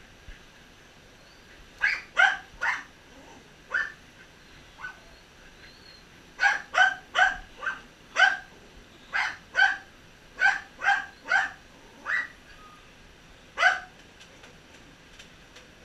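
A dog barking: a run of about sixteen short, sharp barks in quick bunches, starting about two seconds in and ending near the end.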